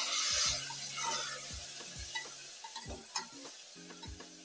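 A metal spoon stirring and scraping spice paste frying in an open aluminium pressure cooker, the masala sizzling, loudest at the start and fading, with a series of spoon knocks against the pot. The paste is being fried in oil until it cooks down.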